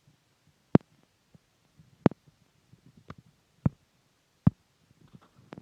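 A handful of short, dull thumps at irregular intervals, about one a second, with faint low rumble between them.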